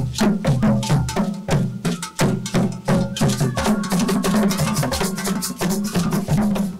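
Fast drum and percussion music for a Nigerian traditional dance: deep drum beats under rapid, sharp clacking strikes.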